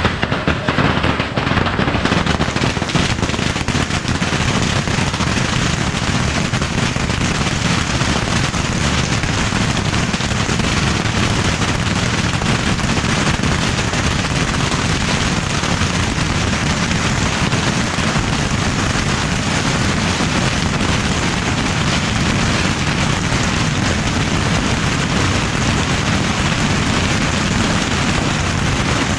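Beehive rocket launcher firing a dense, unbroken barrage of bottle rockets and firecrackers: a continuous rapid crackle of countless small bangs that keeps up without a pause.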